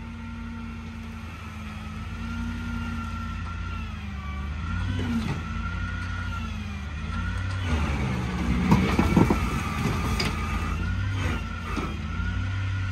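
Heavy diesel machinery running steadily with a high whine above the engine note, the pitch sagging and recovering as it takes load. About eight to ten seconds in, a cluster of metal clanks and crunches, the loudest part.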